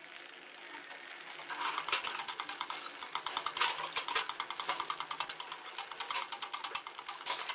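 Kachoris deep-frying in hot oil in an aluminium karahi: a faint hiss at first, then rapid, dense crackling and popping of the oil from about a second and a half in.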